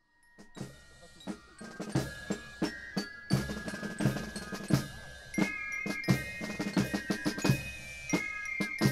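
Marching band playing in a parade: snare and bass drums beat a march, and a high melody line comes in about two seconds in.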